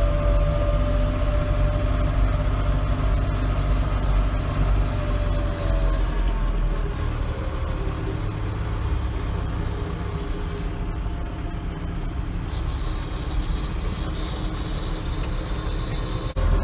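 Branson 5025C compact tractor's diesel engine running steadily under way, heard from the driver's seat; its note drops a little about six seconds in.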